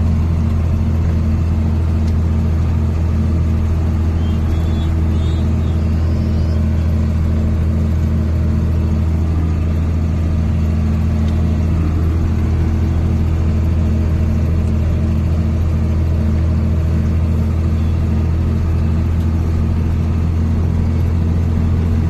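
Large farm tractor's diesel engine running at a steady working speed, heard from inside the cab as an even, loud, low drone.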